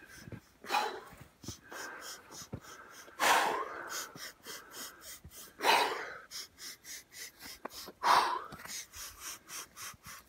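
A man doing Wim Hof–style power breathing: a loud, forceful breath about every two and a half seconds, with fainter quick puffs in between.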